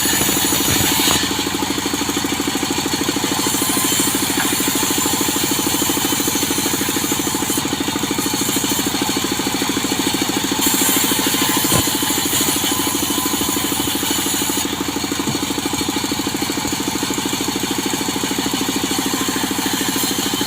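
Engine-driven saw running steadily under load, cutting teak into planks; the high hiss of the cut swells and fades a few times.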